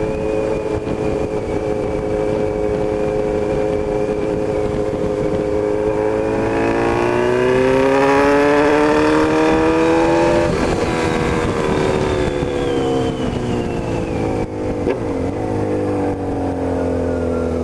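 Honda CB1000 inline-four engine running under way. It holds steady, then the revs climb for a few seconds as it accelerates, drop back as it eases off, and settle into a steady cruise.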